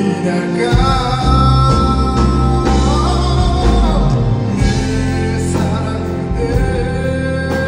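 Male ballad singer performing live with a band, singing into a handheld microphone through the hall's sound system; the band's low end swells in about a second in.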